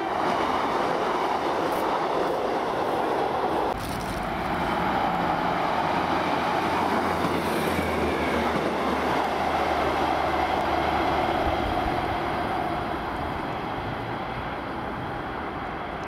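Class 150 Sprinter diesel multiple unit passing close at speed, wheels on the rails and underfloor diesel engine running; the noise eases a little near the end as it moves away.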